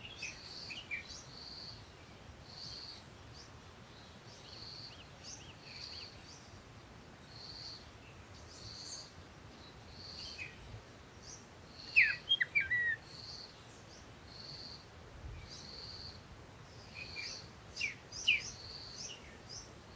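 Jungle birds calling: a short high note repeated about once a second over a soft background hiss, with bursts of sharper, louder chirps about twelve seconds in and again near the end.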